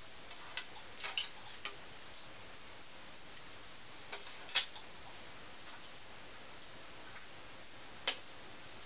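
Scattered small clicks and taps of hand tools and tiny plastic model parts being handled and set down on a wooden desktop, over a steady faint hiss; a few come in a quick cluster about a second in, the loudest about halfway through, and one more near the end.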